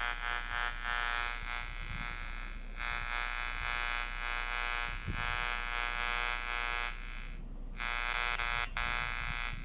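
Steady electrical buzz with many overtones, dropping away briefly a few times and cutting out for about half a second near the three-quarter mark.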